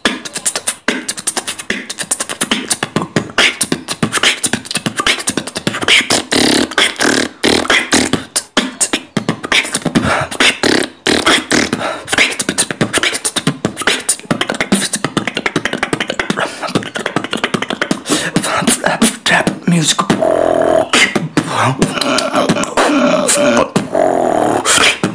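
Human beatboxing: a fast, dense run of vocal drum sounds made with the mouth, sharp kick-, snare- and hi-hat-like strokes. From about 20 seconds in, a held hummed tone runs under the beat.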